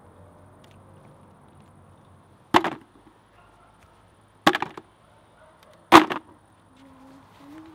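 Collapsible yellow plastic crayfish traps dropped into a plastic bucket: three clattering landings, one every one and a half to two seconds, each with a short rattle as the traps settle.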